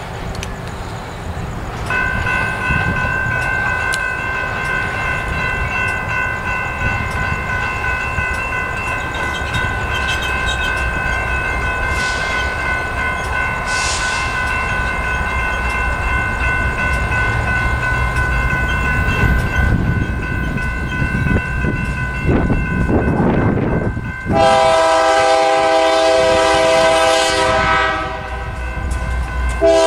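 A BNSF GE Dash 9-44CW diesel locomotive approaches with its five-chime Nathan K3LA air horn, which sounds a loud chord for about four seconds near the end and starts again just as the clip ends. The train's rumble grows underneath. Before the horn, a steady high ringing tone holds for most of the clip.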